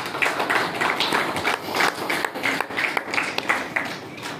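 A congregation applauding: many hands clapping in a dense, irregular patter that starts abruptly and thins out near the end.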